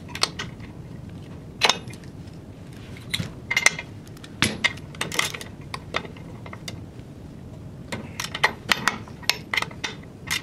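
A ratchet wrench working a pivot bolt and small steel parts (washers and thrust bearing pieces) knocking on a steel mount plate: irregular sharp metallic clicks and clinks, some with a brief high ring, with a quicker run of clicks near the end.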